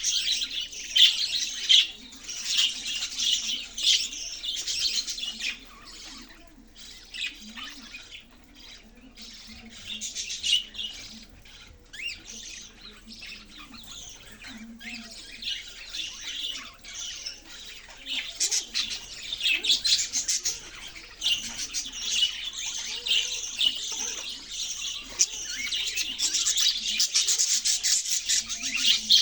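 A group of budgerigars chattering, with rapid overlapping chirps, warbles and occasional squawks. The chatter thins out for a while in the middle, then grows busy again.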